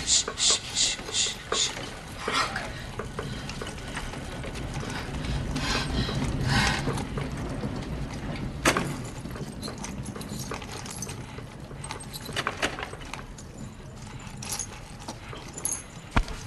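A quick, even run of about five sharp clicks, then scattered faint clicks and rattles, one sharper knock about nine seconds in and a low thump near the end.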